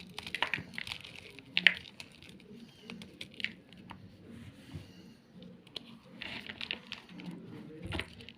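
Gym chalk being crushed: dry, irregular crunching and crackling in two flurries, with the sharpest crack about one and a half seconds in.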